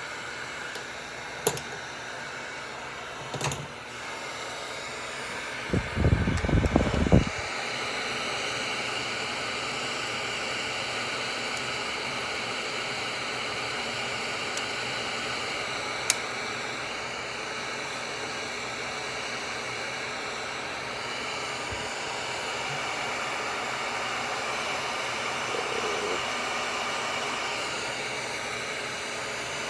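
Wagner heat gun running steadily on its highest setting, blowing hot air to soften a red plastic collar on a quick connect. A few sharp clicks and a loud burst of low knocking about six seconds in.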